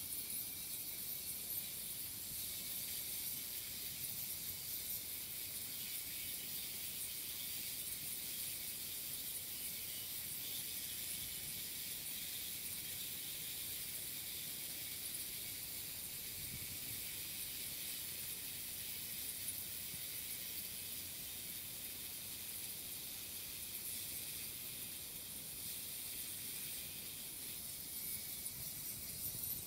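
40 kHz ultrasonic cleaner, driven by a full-wave PWM board, running with its water cavitating: a steady high-pitched hiss. A sheet of heavy kitchen foil held in the bath is being pitted through by the cavitation.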